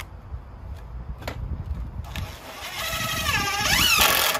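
DeWalt 20V MAX cordless impact driver driving a screw into a wooden framing stud: from about two seconds in it runs loud and hard, its pitch sagging and rising near the end as the screw seats, then stops. The screw goes in a bit too fast.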